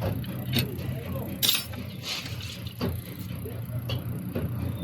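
A few short metallic clicks and taps from small injector parts being handled on the bench, the loudest about a second and a half in, over a steady low hum.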